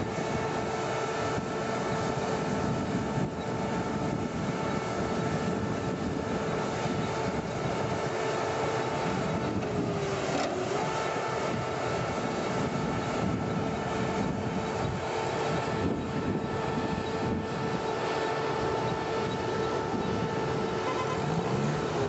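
Heavy logging machinery running steadily: diesel engines under load with a steady high whine over the engine noise. The whine dips in pitch briefly about ten seconds in, then comes back.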